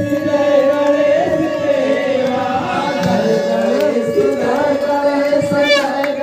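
Hindu devotional aarti music with singing, a steady held note running underneath.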